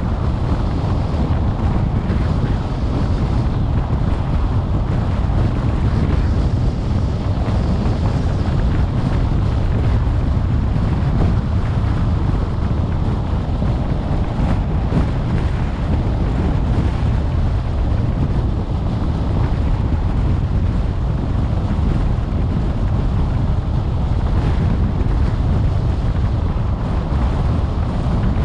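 Steady road noise from a car driving at speed on an open highway: a constant low rumble of tyres and engine with wind hiss, heard from inside the car.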